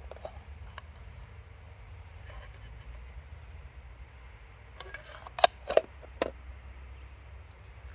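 Three sharp clicks in quick succession a little past the middle, over a steady low rumble.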